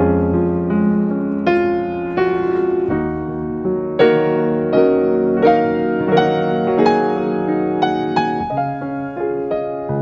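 Background piano music: gentle chords and single notes played at an unhurried pace.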